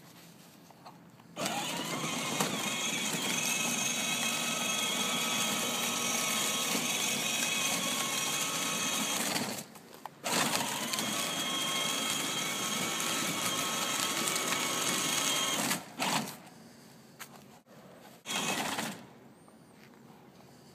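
Battery-powered children's ride-on toy car's electric drive motors and gearboxes whining as it drives. Two long runs of several seconds with a short stop between, then two brief bursts near the end.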